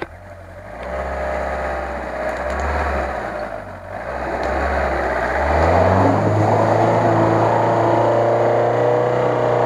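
Off-road 4x4's engine working under load in deep mud, revving up in pitch about five and a half seconds in and held at high revs.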